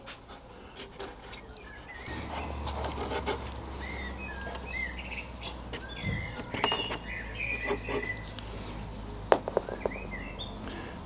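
Small birds chirping over and over, with a few sharp clicks and taps near the end, over a low steady hum that comes in about two seconds in.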